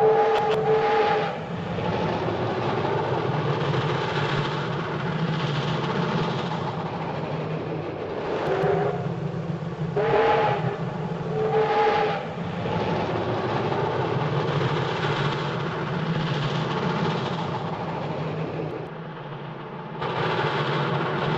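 Train running along the track with a steady rumble, its two-note whistle blowing at the start and then three more short blasts, about a third of the way in and twice more close together shortly after.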